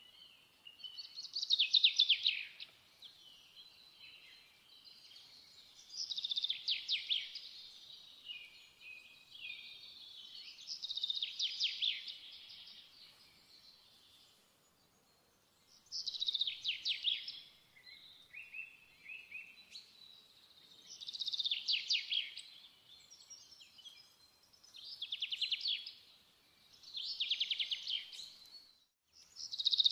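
A songbird singing short, high, rapidly trilled phrases, one every few seconds.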